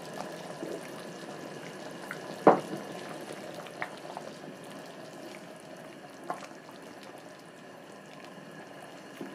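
Thick rice porridge bubbling at a boil while a wooden spatula stirs it, with one sharp knock about two and a half seconds in and a few lighter taps later.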